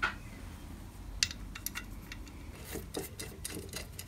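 Scattered light clicks and knocks of steel brackets and bolts being handled and fitted together by hand: a sharp click at the start, a few ticks about a second in, and a cluster of small knocks near the end.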